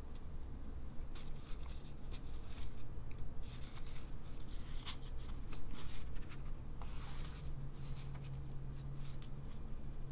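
Rustling and crackling of a thin plastic disposable glove, with light scrapes and ticks as a silicon wafer is picked up and handled, over a low steady hum.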